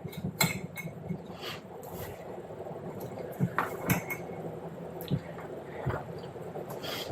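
Kitchen utensils knocking and clinking against dishes or a pot in a dozen or so scattered, irregular taps, over a steady low hum.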